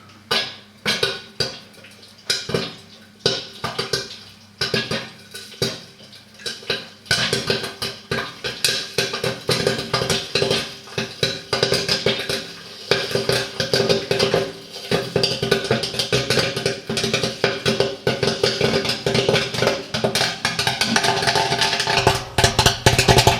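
Popcorn kernels popping in the heated kettle of a popcorn machine with a stirrer running: scattered pops about two a second at first, turning into rapid, dense popping about seven seconds in as the batch reaches full pop.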